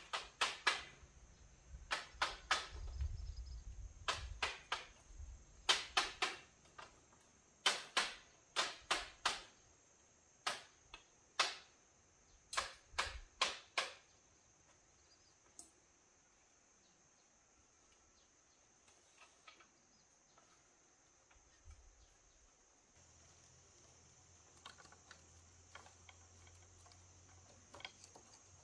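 Sharp knocks of a tool striking bamboo poles, in quick clusters for about fourteen seconds, then only a few faint taps. A steady high insect drone runs underneath.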